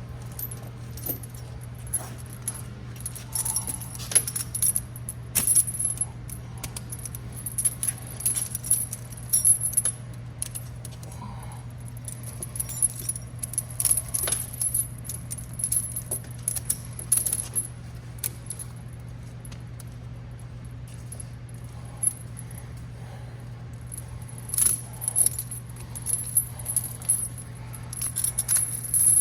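Steel tire chain links clinking and rattling in spells as the chain is pulled tight section by section on a truck's dual tire, over a steady low hum.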